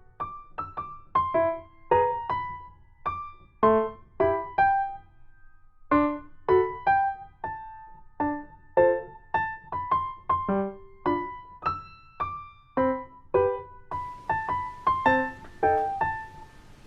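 Background music: a gentle melody of single electric-piano notes, about two to three a second, with a brief pause about five seconds in.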